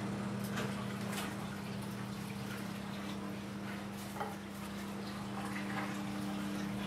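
Water running and splashing in a basin, with light knocks and clicks of handling, over a steady low electrical hum.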